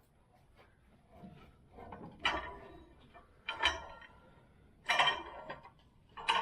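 Four separate clanks and rattles of metal tools or parts being handled, about a second and a half apart.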